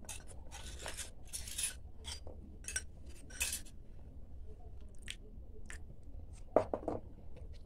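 A metal spoon scraping and clicking against a small steel bowl as maida flour and water are stirred together into a dough, a quick run of scrapes in the first few seconds and then a few scattered clicks. A short louder sound comes near the end.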